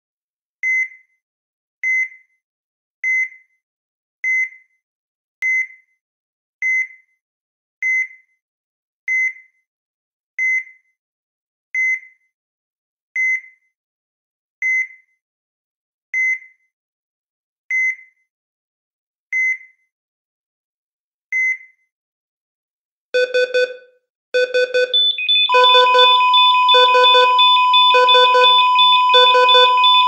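Heart rate monitor (EKG) sound effect: a single high beep with each heartbeat, the beats slowly spacing out as the pulse slows. Near the end a multi-tone alarm starts up, then a continuous flatline tone sounds under pulsing alarm beeps.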